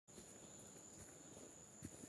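Near silence: faint outdoor ambience with a thin, steady high-pitched tone, and a soft knock near the end.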